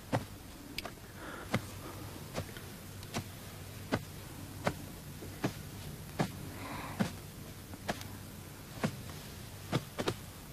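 Slow footsteps on a hard floor, one sharp step about every three-quarters of a second, slightly uneven, over a faint low hum.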